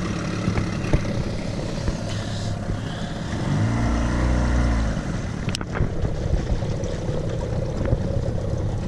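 An engine running steadily, its pitch rising and then falling once about four seconds in.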